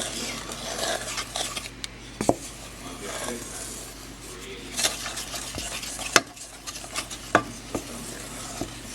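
Spoon stirring a thick no-bake cookie mixture, scraping round the container with a few sharp clinks of spoon against its side.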